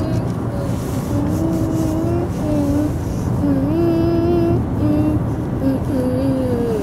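Steady road and engine rumble inside a moving car's cabin, with a slow melody of long, drawn-out notes in a high voice carrying over it from about a second in.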